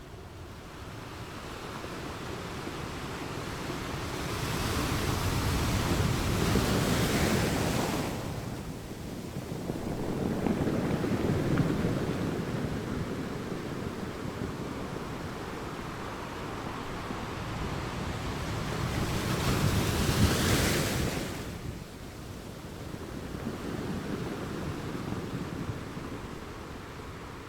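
Ocean surf: waves breaking on the shore and washing back in a continuous rush that swells and ebbs. The loudest breakers come about six seconds in, again around eleven seconds, and strongest about twenty seconds in.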